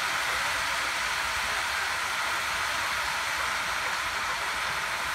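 Steady hissing of sliced eggplant frying in oil in a wok over an LPG gas burner.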